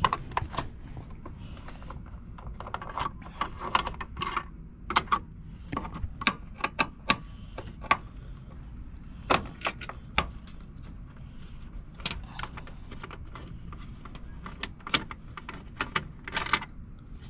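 Irregular metallic clicks, clinks and small knocks of hand tools and screws being worked loose from a metal mounting plate, over a low steady rumble.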